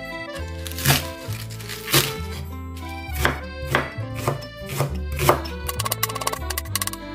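Chef's knife cutting spring cabbage and then slicing a large green onion on a wooden cutting board: repeated crisp knocks of the blade on the board.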